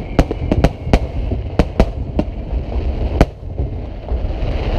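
Fireworks display: aerial shells bursting in a rapid run of about ten sharp bangs over a low rumble. The last bang comes about three seconds in, after which only the rumble remains.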